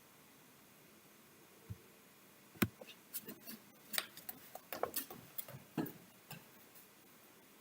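A faint click, then a quick, irregular run of sharp clicks and taps lasting about four seconds, starting about two and a half seconds in, over quiet room tone.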